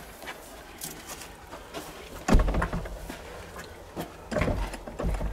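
A heavy thump about two seconds in, then rattling, and more thumps near the end, as a handle-less door is pushed and pulled without opening; it is taken to be locked from the other side.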